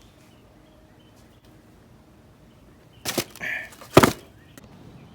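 Faint birds chirping in the background. About three seconds in comes a short burst of rustling and handling noise, ending in a sharp knock at about four seconds.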